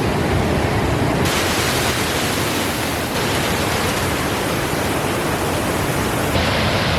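A waterfall in full flow: loud, steady rushing of falling water. The higher hiss shifts abruptly a few times, as between cuts.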